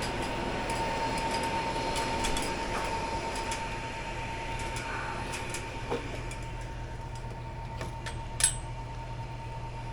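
Steady hum of running air-conditioning equipment, with a thin constant whine over a low drone, a few faint clicks of handling, and one sharper click about eight and a half seconds in.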